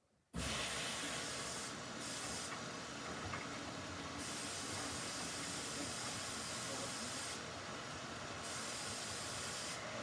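Samsung washing machine taking in water: a steady hiss and spray of water rushing into the drum, starting suddenly about a third of a second in as the inlet valve opens.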